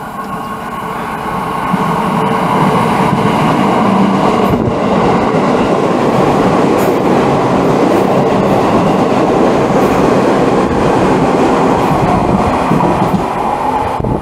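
JR East 211 series 3000-subseries electric train, six cars (3+3) running out of service, passing through a station platform without stopping. The loud rumble of the wheels and running gear builds over the first two seconds and then holds steady, with scattered clicks. It cuts off suddenly at the very end.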